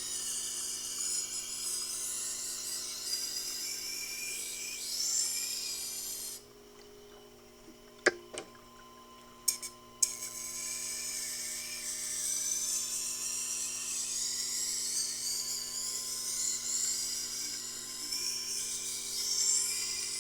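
Tormek T-8 wet grinder's wheel grinding a chef knife's edge, with the motor humming steadily underneath, to raise a burr at 18 degrees. About six seconds in the blade comes off the wheel for a few seconds, with a few sharp clicks of the knife jig being repositioned, then the grinding resumes.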